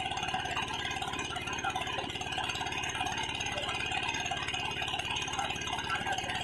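Small engine running steadily with a rapid, even rattling beat.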